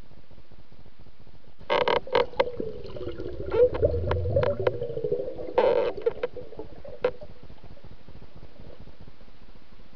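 Underwater clicks and knocks picked up through a submerged camera, with a wavering hum and a low rumble, starting about two seconds in and dying away by about seven seconds, over a steady hiss.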